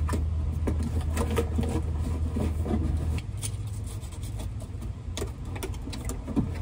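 Aluminium foil tape crackling and being tapped down by hand, over a low steady engine hum that drops away about three seconds in.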